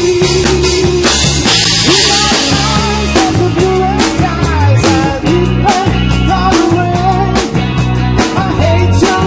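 Live rock band playing through a PA, with electric guitars, bass and drum kit. A guitar note is held through the first second, there is a crash about a second and a half in, and then a melodic lead line runs over the drums.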